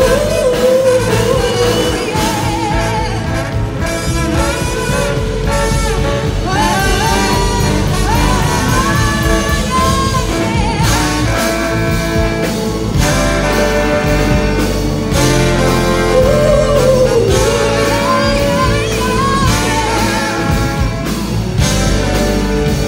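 Live brass-funk band playing loud: trombone and saxophones play bending melodic lines over electric guitar, bass and drums.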